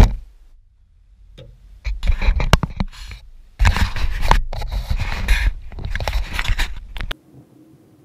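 Handling noise of a hand gripping and adjusting a GoPro camera: skin and fingers scraping and rubbing on the camera housing, with clicks. A sharp click right at the start, then two stretches of loud scraping that stop abruptly near the end.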